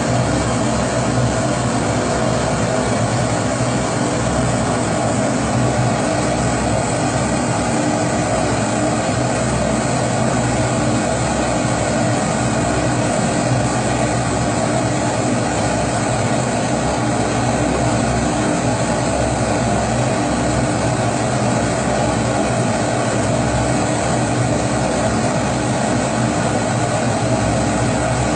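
Kerosene pressure stove (Primus-type babour) burner burning with a steady, even rushing noise and a low hum that does not change.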